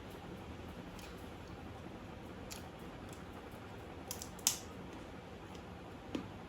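A few light clicks and taps of small objects being handled, the sharpest about four and a half seconds in, with a short dull knock near the end, over faint room noise.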